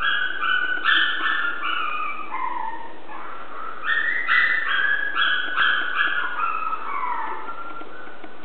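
Chihuahua puppies whining in two runs of short, high-pitched whines that step down in pitch, with a brief lull after about two and a half seconds.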